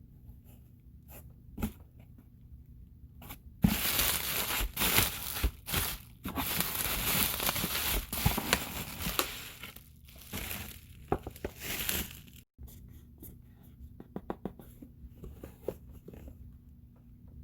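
Packaging of a light-stick box being torn open and crinkled, in a loud rustling stretch of about eight seconds that starts a few seconds in. Lighter handling clicks come before and after it.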